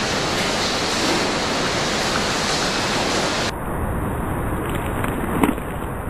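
Steady hiss of background noise with no distinct event, and a faint tap about five and a half seconds in.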